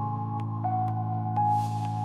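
Instrumental deep house music: a sustained synth bass and pad under a synth melody stepping between notes. Light percussion ticks run about twice a second, with a brief hiss swell about one and a half seconds in.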